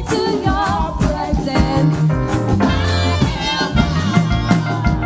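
Church praise band playing worship music: drum kit keeping a steady beat under bass and keyboard, with a voice singing wavering lines over it.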